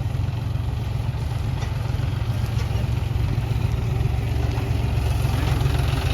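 John Deere tractor's diesel engine running steadily with a low rumble, a little louder in the second half.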